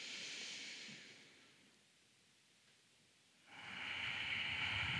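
A person breathing deeply and audibly: a soft breath in at the start, a pause of about two seconds, then a longer, louder breath out with a slight sigh that begins about three and a half seconds in, paced to the cat-cow movement.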